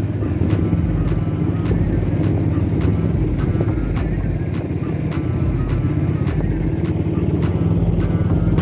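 Small motorboat engine running steadily, carrying the boat along.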